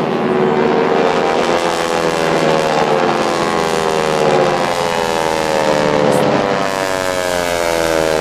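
A formation of airplanes flying past with their engines droning loudly. Several engine pitches overlap and slowly fall as the aircraft pass.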